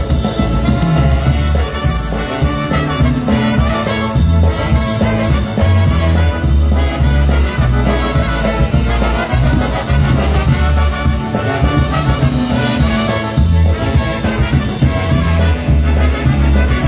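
Live polka band playing an instrumental break, brass over a steady pulsing bass beat, with no singing.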